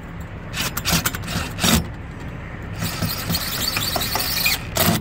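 DeWalt cordless impact driver driving a bolt through a steel mounting strap: a few short bursts, then a longer run of about two seconds near the end, over a steady low hum.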